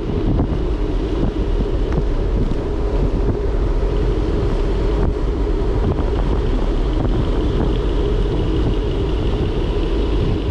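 Steady wind rushing and buffeting over the microphone of a camera riding on a bicycle rolling down a paved road, a loud, even rush with a deep rumble.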